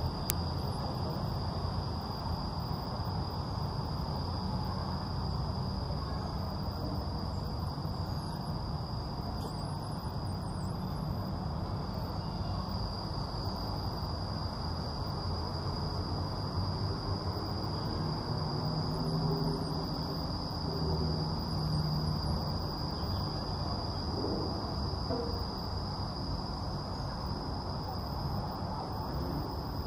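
Outdoor park ambience: a steady, high-pitched insect drone holds throughout over a low, even rumble of background noise.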